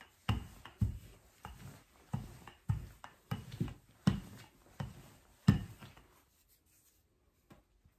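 Wooden rolling pin rolling pie-crust dough out on a floured silicone mat: about ten back-and-forth strokes, each a soft thump with a rubbing hiss, at roughly two a second, stopping about six seconds in.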